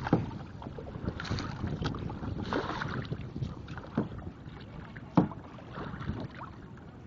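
Kayak paddle strokes in the water, a splash about every second and a half, with two sharper knocks, one just after the start and one about five seconds in. Wind rumbles on the microphone.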